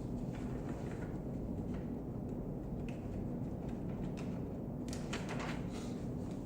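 Steady low background hum of the recording room, with a few faint clicks and a short cluster of rustling clicks about five seconds in.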